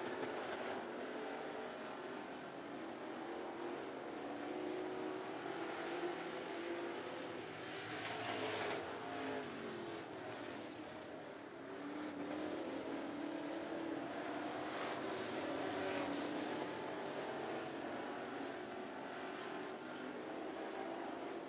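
Several dirt-track race car engines running hard around the oval, with a steady haze of engine and tyre noise. Engine notes rise and fall in pitch as cars pass, most closely about eight to nine seconds in and again around sixteen seconds.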